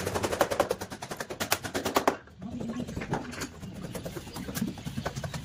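A rapid run of sharp taps, many to the second, with a short break about two seconds in.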